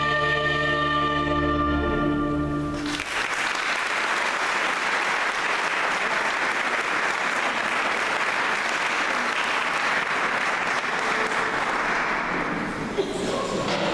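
A church choir holds its final chord, which cuts off about three seconds in, and then the audience applauds; the applause thins near the end.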